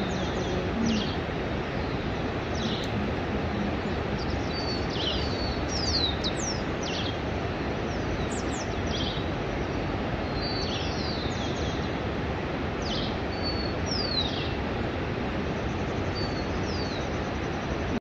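Birds chirping: short, high calls, many sliding down in pitch, repeated every second or so over a steady rushing background noise.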